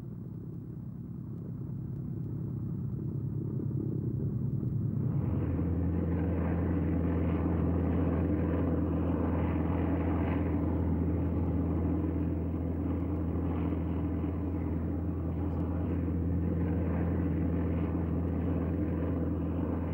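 Piston-engined propeller aircraft running, a steady drone that grows louder, then about five seconds in steps up to a fuller, louder drone that holds steady.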